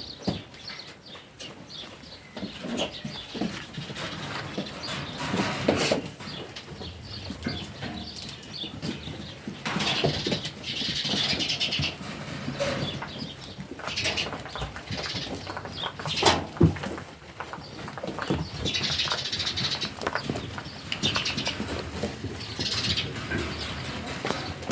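Barn ambience of a sheep flock: rustling and shuffling with scattered knocks, and two longer hissy bursts of higher-pitched sound partway through.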